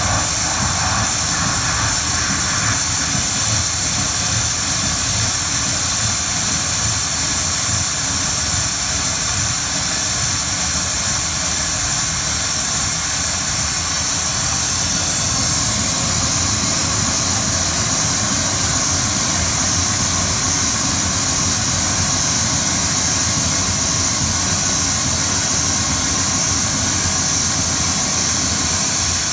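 Dense, steady industrial noise drone made from the rattling of glass inside a boiling pan, fed into electronics and processed into a continuous rumble and hiss. A high hiss grows stronger about halfway through.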